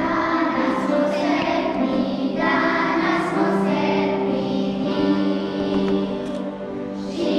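Children's choir singing, with long held notes from an accompanying instrument.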